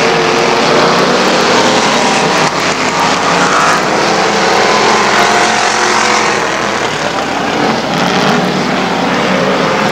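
Several street stock race cars running hard in a heat race, their engines rising and falling in pitch as they go round. One car passes close about four seconds in.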